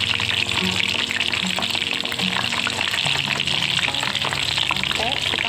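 Wonton wrappers deep-frying in hot oil: a steady, loud sizzle full of fine crackles.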